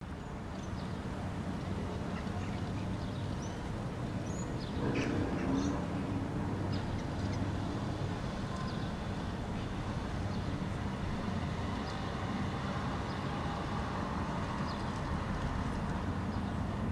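Steady low rumble of distant city traffic, with faint, short high bird chirps scattered through it and a somewhat louder call-like sound about five seconds in.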